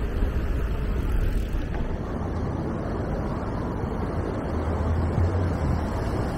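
Wind buffeting the camera's microphone while riding along a city street: a steady low rumble, with road traffic underneath.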